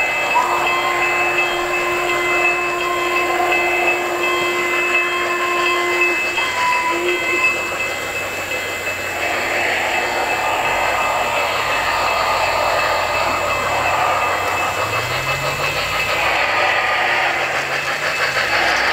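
O-scale three-rail model trains rolling on track, with steady wheel and rail clatter from a string of passing hopper cars. A model steam locomotive's whistle blows one long note for about six seconds, then gives a short toot. Near the end a model N&W J class steam locomotive passes, and the running noise grows.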